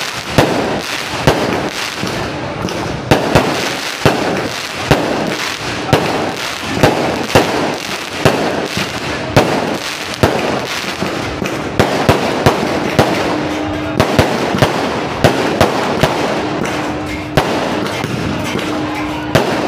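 An aerial fireworks display: many sharp bangs of bursting shells at irregular, close intervals, over continuous crackling.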